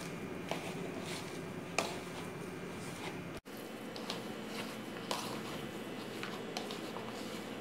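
A hand squeezing and mixing a soft mash of chopped boiled macaroni, grated cheese and semolina sauce in a plastic bowl. It gives faint squishing with scattered light taps, over a steady background hum.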